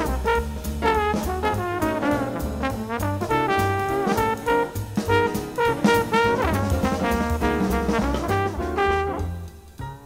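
Jazz trombone playing the closing phrases of a solo in quick runs of short notes with a few slides, over piano, double bass and drums. The trombone stops about nine seconds in and the rhythm section carries on more quietly.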